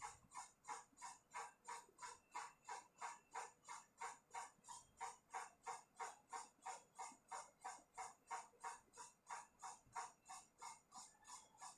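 Faint, steady mechanical ticking at an even pace of about three ticks a second.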